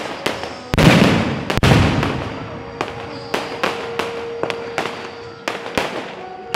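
Aerial fireworks bursting overhead: a quick run of sharp bangs and crackles, with two heavier booms about a second and a second and a half in.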